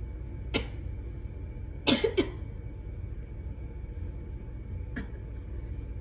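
Brief coughs or throat noises from a woman in an allergic sneeze fit: one short one about half a second in, a louder quick double about two seconds in, and a faint one near five seconds, over a steady low rumble of room noise.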